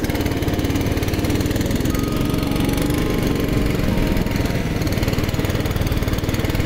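Small motor vehicle's engine running steadily under way, with a fast, even firing pulse, as it is ridden across the ice to a new fishing spot.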